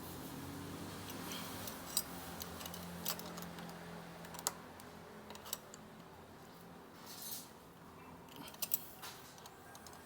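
Scattered light metallic clicks and clinks, a few seconds apart, of hand tools and bolt hardware being worked while tightening a motorcycle frame slider's mounting bolt.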